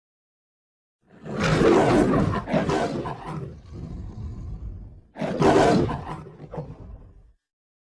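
Kaiju monster roar sound effect, twice: a long harsh roar starting about a second in that trails off, then a shorter second roar about five seconds in.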